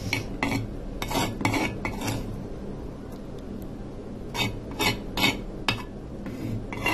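Metal cutlery scraping and clinking against a ceramic plate in short strokes: several in the first two seconds, a quieter stretch, then more from about four seconds in.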